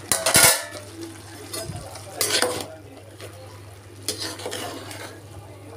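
The aluminium plate that served as a lid clanks against the aluminium cooking pot. A metal slotted spoon then scrapes and stirs the freshly cooked rice against the pot in a few strokes, over a steady low hum.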